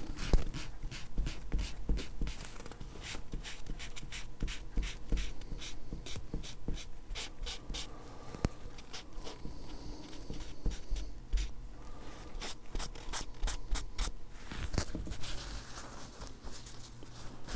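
Cloth rag rubbing briskly back and forth over the engraved markings of a rifle receiver, wiping off excess color-fill paint: a quick run of short rubbing strokes, several a second, thinning out briefly a couple of times.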